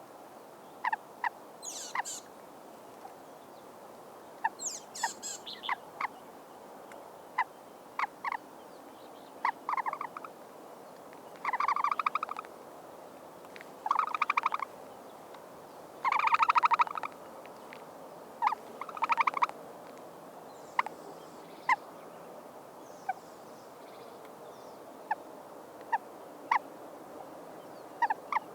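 Animal calls: many short sharp chirps scattered throughout, and several rapid pulsed, rattling calls of about half a second to a second. The longest and loudest comes about two thirds of the way through.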